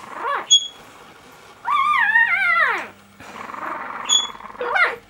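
Newborn American Staffordshire Terrier puppy whimpering. A wavering cry that falls away at the end comes about two seconds in and lasts about a second, with short rising squeaks near the start and just before the end.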